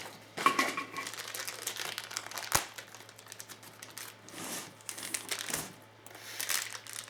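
Packaging crinkling and rustling in irregular bursts as airsoft PMag magazines are unwrapped by hand, with one sharp click about two and a half seconds in.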